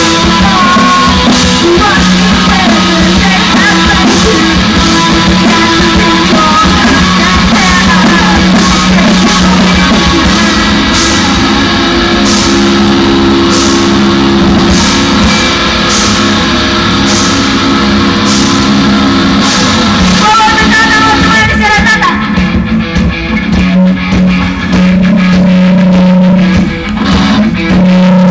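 Rock band playing live, electric guitar over bass and drums, recorded loud and harsh. About three-quarters of the way through the highest sounds drop out and the loudness begins to dip.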